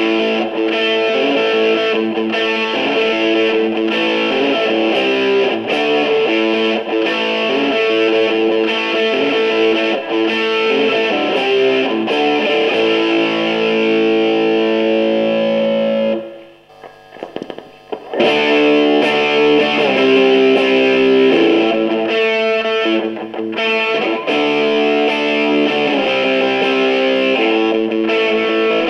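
Electric guitar played through a handmade clone of the 1992 Marshall Bluesbreaker overdrive pedal and an amp, with ringing, lightly overdriven notes and chords. The playing stops for about two seconds past the middle, then resumes.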